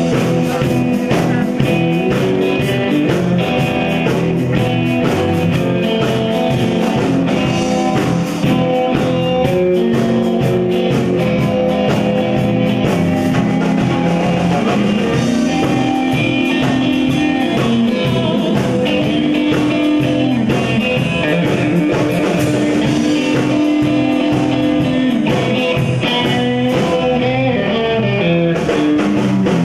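A live three-piece rock band playing: electric guitar notes over a steady drum beat, with no words sung.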